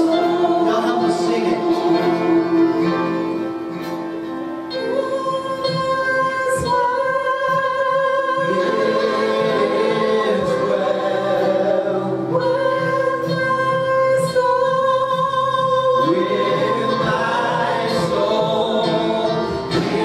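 Gospel hymn: a group of voices singing with instrumental accompaniment, in long phrases of held notes.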